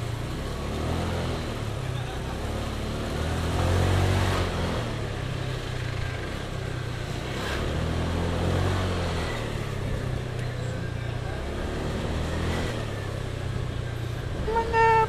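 Motorcycle engine running under way, swelling as it picks up speed about four seconds in and again around eight seconds. A held pitched tone starts just before the end.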